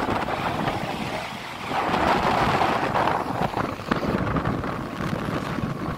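Wind buffeting the phone's microphone during a ride along a road, a rough rumbling rush that swells louder about two seconds in, then eases.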